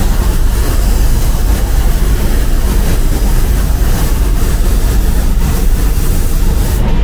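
Loud, steady machinery noise: a deep, even rumble with a hiss over it. The hiss drops away near the end.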